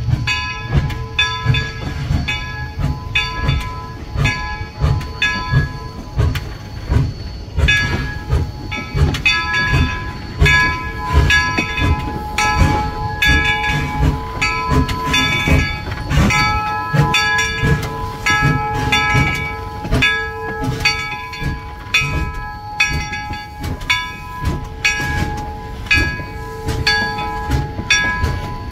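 Locomotive bell on NCRR No. 17 'York', a 4-4-0 steam locomotive, ringing in steady repeated strokes as the engine moves, over the locomotive's low running sound.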